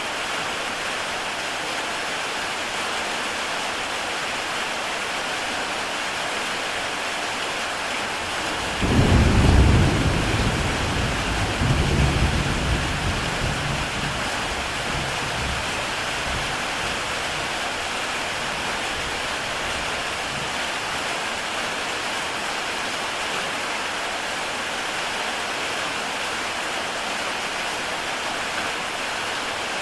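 Heavy rain falling steadily on a tile roof. About nine seconds in, a roll of thunder breaks in low and loud, swells again a few seconds later, and dies away.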